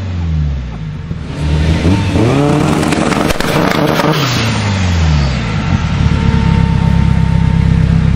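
Tuned BMW E30 engine revved in two blips, the pitch rising and falling back each time, with a burst of crackles and pops about three to four seconds in. From about six seconds on it settles into a steady, rumbling low-speed run.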